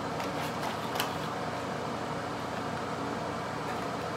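Steady mechanical background hum, with a light click about a second in and a few faint ticks as a small cardboard product box is handled and opened.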